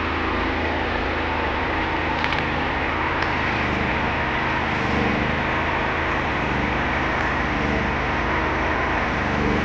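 Motorcycle engine of a bentor (motorcycle-powered pedicab cart) running steadily, at an even, unchanging level.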